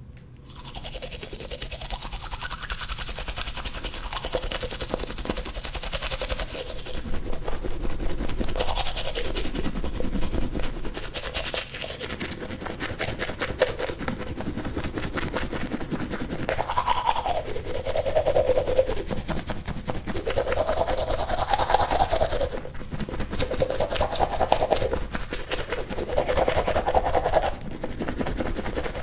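Toothbrush scrubbing teeth inside a mouth, a steady back-and-forth brushing with rapid fine strokes and a wet, hollow tone that shifts as the mouth changes shape.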